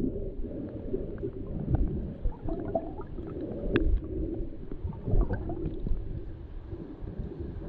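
Flowing river water heard underwater through a camera's waterproof housing: a muffled, low gurgling rumble with a few faint clicks scattered through it.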